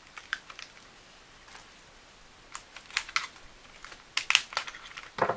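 Small hand tools being picked up and handled on a wooden workbench: a scatter of sharp clicks and light clatters, busiest in the second half.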